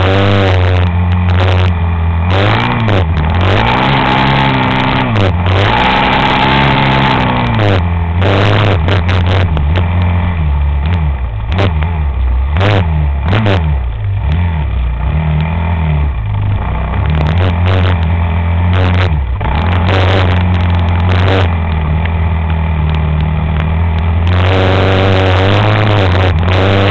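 An engine revved up and down several times, settling to a steadier run in the middle and revving again near the end.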